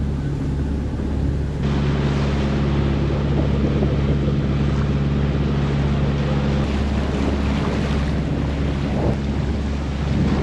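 Boat engine running steadily while under way, with rushing water and wind buffeting the microphone.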